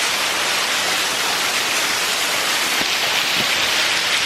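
Very heavy rain pouring down during a thunderstorm: a loud, steady hiss of rainfall.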